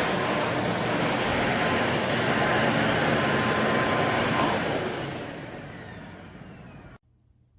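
Aspiron bagless canister vacuum cleaner running at full suction with a steady whine, then switched off: its motor spins down with a falling whine over a couple of seconds before the sound cuts off abruptly.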